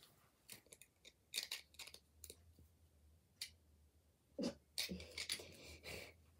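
Lego bricks handled in the fingers and pressed together: faint, scattered plastic clicks and rustles, coming more thickly in the last couple of seconds.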